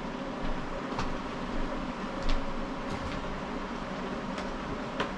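Pork cooking in a wok on an electric stove: a steady sizzling hiss with a few sharp pops now and then.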